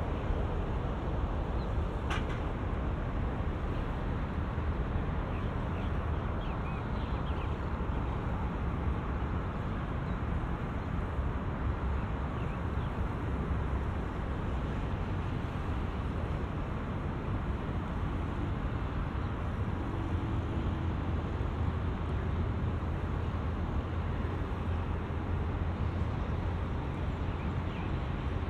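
Steady road-traffic rumble from nearby bridge traffic, with a sharp click about two seconds in and a few faint high chirps.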